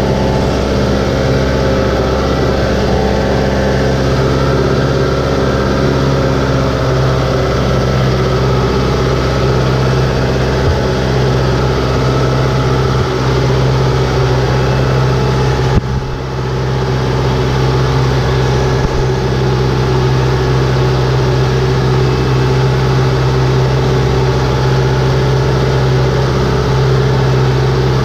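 Compact farm tractor's diesel engine running steadily under load while the wheels churn through flooded paddy mud and water. The engine note dips briefly about halfway.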